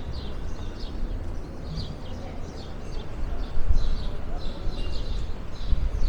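Small birds chirping repeatedly in short, high chirps over a steady low rumble.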